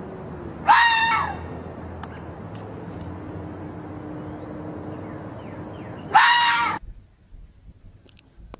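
Red fox giving two loud, high-pitched screams, each about half a second long and about five seconds apart.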